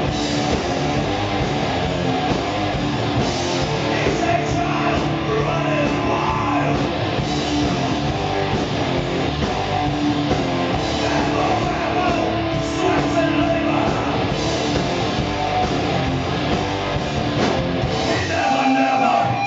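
Live hard rock band playing: distorted electric guitar, bass guitar and drum kit, with a singing voice. The lowest bass end drops away near the end.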